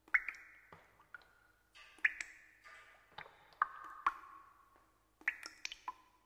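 Sparse, irregular pings and clicks, about a dozen, most leaving a brief ringing tone at a different pitch each time.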